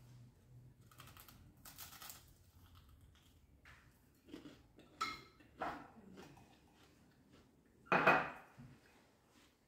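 Tableside eating sounds: crunching bites of toast, then a few sharp knocks of a drinking glass and plate on a hard tabletop, the loudest about eight seconds in.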